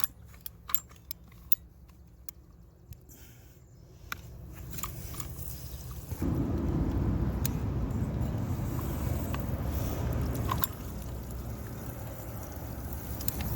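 A quick run of sharp clicks, then water from a cut irrigation pipe pouring out: the flow builds up and about six seconds in turns into a steady low rush, easing slightly near the end. It is the residual water in the line draining with little pressure behind it.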